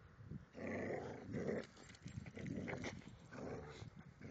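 Border collie growling in play as it bites and tugs at its leash, in several rough bursts.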